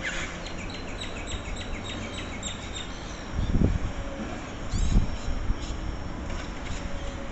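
A quick run of high bird chirps in the first couple of seconds over a steady low rumble of heavy machinery, with two dull low thumps in the middle.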